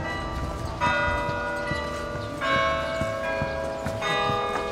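Bells tolling slowly, three strokes about a second and a half apart, each at a slightly different pitch and ringing on into the next.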